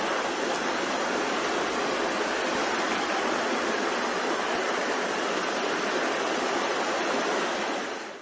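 Shallow river water running over stones, a steady rushing that fades out near the end.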